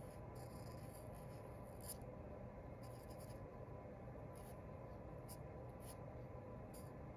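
Fine-point felt-tip marker drawing short strokes on paper: faint, brief scratches at irregular intervals over a steady low room hum.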